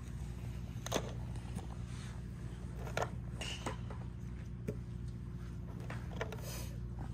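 Driving range sounds: a few sharp clicks and knocks from golf clubs striking practice balls and balls knocking together, the clearest about one and three seconds in, over a steady low hum.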